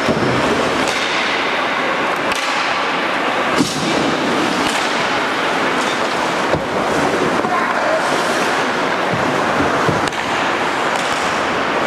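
Ice hockey play on the rink: a steady scraping hiss of skates on the ice with sharp stick and puck knocks, the loudest about three and a half seconds in and others at about six and a half and ten seconds.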